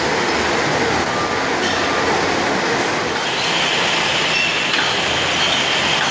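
Roller conveyor line running steadily, with plastic crates moving over the metal rollers. A higher hiss joins about three seconds in.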